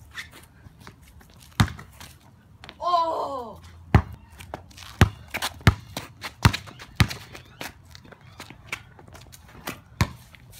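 Basketball bouncing on a concrete driveway: a run of sharp thuds at uneven spacing, most of them between about four and seven seconds in. A boy gives a short shout about three seconds in.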